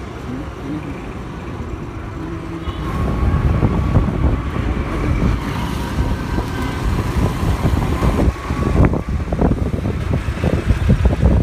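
Motor scooter being ridden along a road in traffic: engine and road rumble with wind rushing over the microphone. It gets louder about three seconds in as speed picks up, and turns gusty and buffeting near the end.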